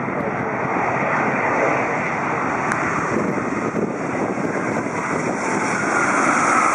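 Airbus A380 four-engine jet airliner landing: steady jet engine noise, with a whine coming up near the end as it rolls out on the runway.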